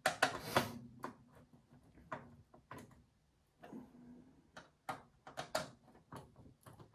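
A brief scrape, then irregular metal clicks and ticks as a screwdriver works a screw on a steel tool-cabinet drawer's runner. The drawer's fit is being adjusted: the screw is loosened so the drawer can be lifted into line.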